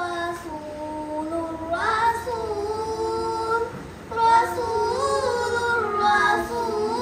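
A group of children singing a madhaha, a Dhivehi devotional song, with long held and gliding notes and a short break in the singing just before four seconds in.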